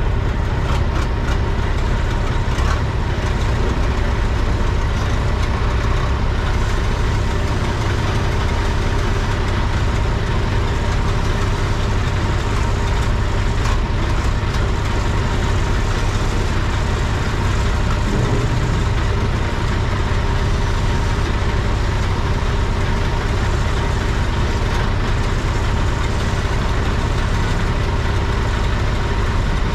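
Heavy-equipment diesel engine running steadily at a constant speed during a lift.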